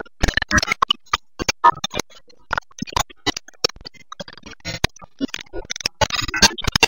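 Digital glitch sound effects: an irregular run of sharp electronic clicks, crackles and short blips of static.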